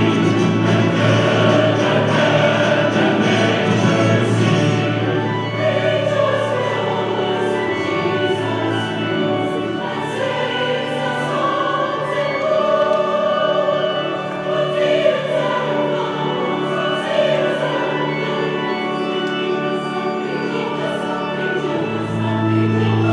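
Choir singing slow sacred music with accompaniment; a low held note drops away about five seconds in and comes back near the end.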